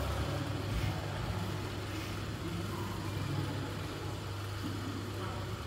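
Steady low mechanical hum with a faint even background noise and no shuttle strikes.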